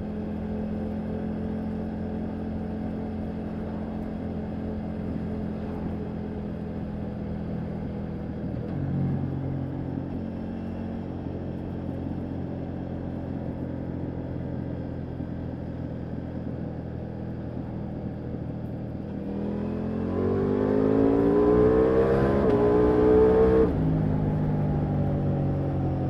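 Ducati Multistrada V4 Rally's 1158 cc V4 engine, ridden at a steady road cruise. About twenty seconds in the rider opens the throttle hard and the revs climb for about four seconds, then cut back abruptly to a steadier note.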